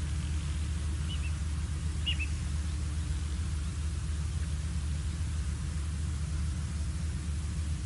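Steady low rumble and hiss from an outdoor wildlife-camera microphone, with two brief high bird chirps about one and two seconds in.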